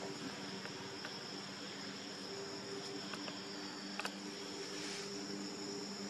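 Steady high-pitched drone of forest insects, over a low steady hum, with a few faint clicks.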